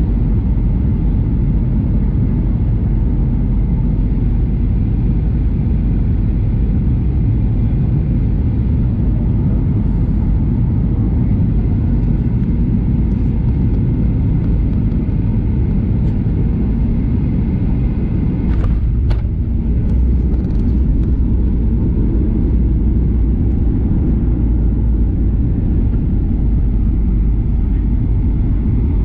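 Boeing 737-800 cabin noise during descent: a steady low rumble of engines and airflow. About two-thirds of the way through there is a brief knock.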